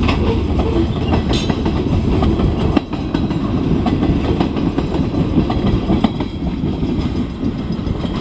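Freight cars rolling past close by: a steady rumble of steel wheels on rail, with sharp clicks as the wheels cross rail joints.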